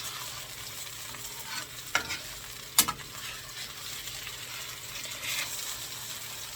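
Homemade veal pieces sizzling as they sear on a hot stovetop griddle, with two sharp clicks of a utensil against the pan, about two and about three seconds in.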